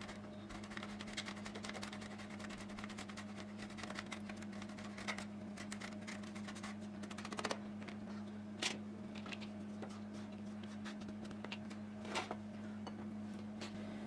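Hard cheese being grated on a metal box grater: a fast run of short rasping strokes, followed by a few sharp knocks in the second half as the grater is put down and the cheese gathered. A steady low hum runs underneath.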